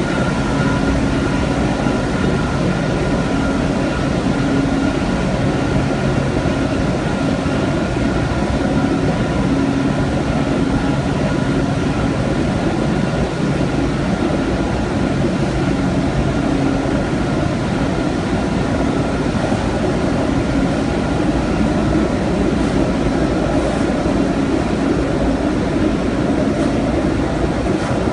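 Steady drone of a running thermal paper coating machine, its motors and rollers turning, with a low hum and a fainter higher tone held steady over an even machine noise.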